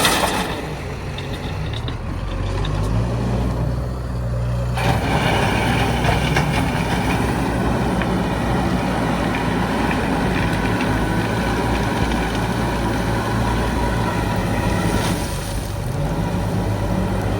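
Heavy diesel engines of a backhoe loader and trucks running, the engine note rising and falling as the machine works. About five seconds in, a rougher, fuller noise joins and carries on.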